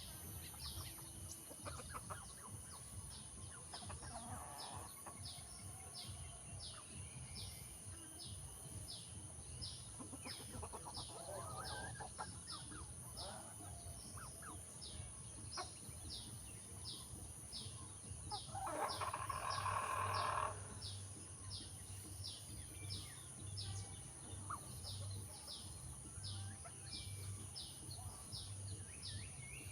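A young chick peeping steadily, short falling peeps a little under two a second, over a constant high-pitched hiss. A few louder rustling or clucking bursts come through, the loudest about nineteen seconds in.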